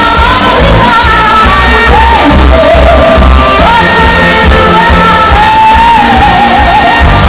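Live band music over a PA, with a woman singing a wavering, gliding melody over a pulsing bass line, recorded very loud.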